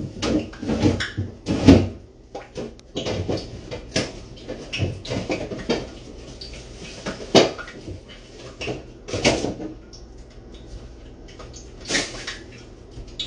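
Rummaging through an open refrigerator: irregular knocks, clunks and rustling as food containers and packages are shifted about on the shelves and in the bottom drawer.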